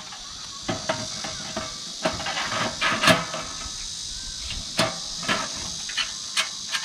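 Metal knocks and clanks as a steel side plate is slotted into a Wood&Burn Camp Station fire-pit box, a string of separate knocks with the loudest about three seconds in. A steady high hiss runs under it.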